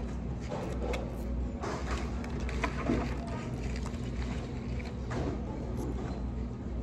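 Restaurant dining-room ambience: a steady low hum with faint voices, and a few short rustles and clicks of food packaging being handled close to the microphone.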